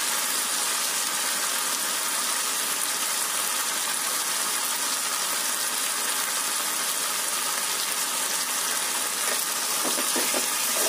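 Spiced chicken and masala sizzling steadily in a hot kadai with a dollop of yogurt just added on top. Near the end, a few spatula scrapes against the pan as the stirring begins.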